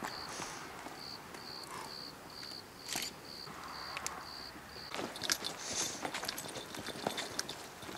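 A cricket chirping, a short high chirp about twice a second, which drops away about five seconds in; after that, a run of sharp clicks and rustles.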